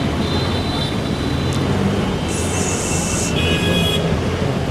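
Road traffic at a bus stand: vehicle engines running with a steady rumble, and a brief high hiss about halfway through.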